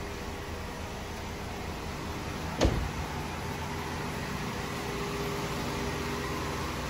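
Steady hum of a car idling, with one sharp click about two and a half seconds in.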